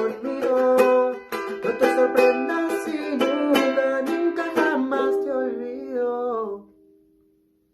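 Ukulele strummed in a steady rhythm with a voice singing along. It ends on a held final chord that dies away about six and a half seconds in.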